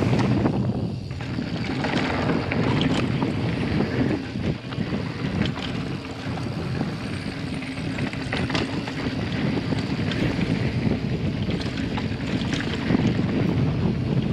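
Wind rushing over a chest-mounted action camera as a Specialized Enduro 29er mountain bike rolls down a dirt and rock trail. The tyres rumble over the ground, with scattered clicks and clatters from the bike over bumps.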